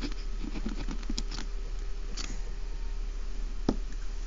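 Felt-tip marker writing on paper: a quick run of short strokes in the first second and a half, a few more a little later, and one sharp tap near the end, over a steady low electrical hum.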